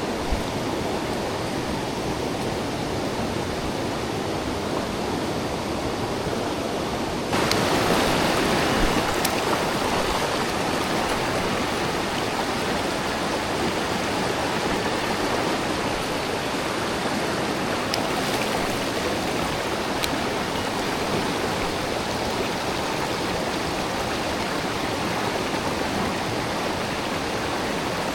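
Mountain stream flowing: a steady rush of water that jumps suddenly louder about seven seconds in.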